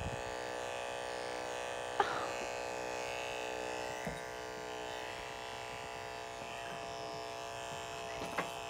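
Electric dog grooming clippers running with a steady buzzing hum, with a sharp click about two seconds in and a couple of fainter clicks later.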